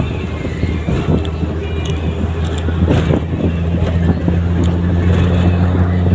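Steady low engine drone heard from inside a moving vehicle, with scattered rattles and knocks. A second, higher hum comes in about three seconds in.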